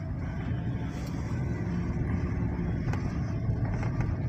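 Car driving along the road, heard from inside the cabin: a steady, even drone of engine and road noise.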